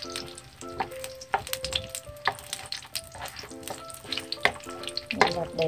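Sweet potato slices sizzling as they deep-fry in hot oil in a pan, with scattered sharp clicks of chopsticks against the pan and slices as they are turned. A tune of short repeated notes plays underneath.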